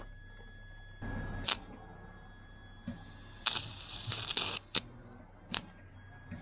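Flux-core wire welder stuttering through failed strikes: sharp pops and clicks as the arc catches and dies, and a single crackling burst of arc about a second long near the middle. The wire is binding in the contact tip, so the arc will not hold.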